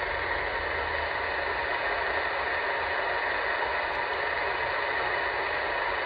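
Steady hiss of 11-metre band static from a radio transceiver's speaker, squelch open with no station transmitting: an empty channel between calls.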